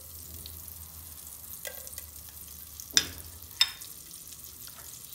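Green cardamom pods frying in melted butter and olive oil, a quiet steady sizzle. Two sharp clicks come about three seconds in, half a second apart.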